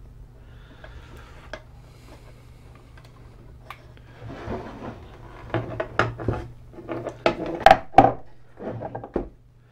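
Handling noise from an opened instrument case and its front panel being moved about on a bench: rubbing and scraping with a run of sharp knocks and clatters, faint at first and busier from about halfway through.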